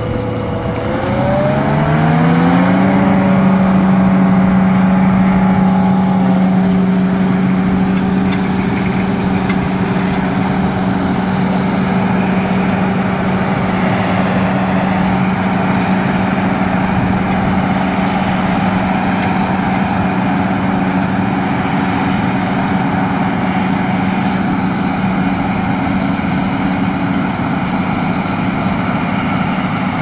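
John Deere self-propelled forage harvester rising in pitch over the first few seconds as it comes up to working speed, then running steadily with an even hum over a broad roar while chopping maize.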